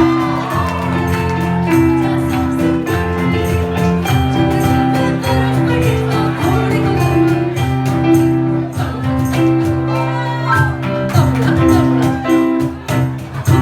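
Loud recorded Bollywood retro dance music with a steady beat and percussion.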